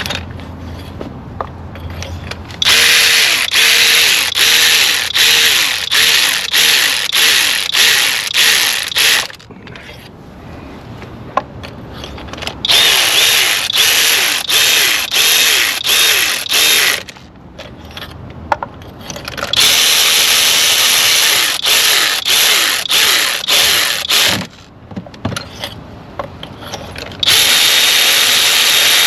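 A cordless power tool runs spark plugs down into the cylinder head in four runs of a few seconds each, with a pulsing rhythm inside each run and short pauses between them.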